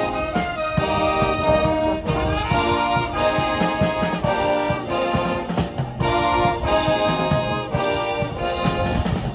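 Brass band playing: tubas, trombones and trumpets sounding held chords that change every second or so, with a drum kit.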